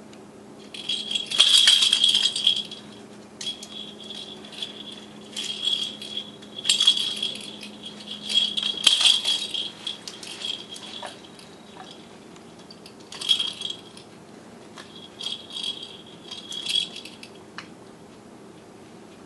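A pet rabbit nudging a hollow plastic rattle ball, which jingles and rattles in irregular bursts of a second or two as it rolls, with short pauses between.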